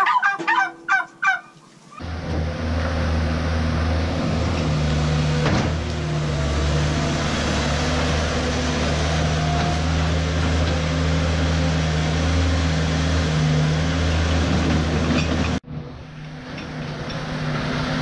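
Turkeys gobbling briefly, then from about two seconds in a New Holland LS170 skid steer's engine running steadily and loudly. Near the end it cuts to a quieter steady engine hum.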